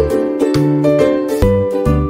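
Light instrumental background music: a melody of pitched notes over a bass line that changes note about every half second.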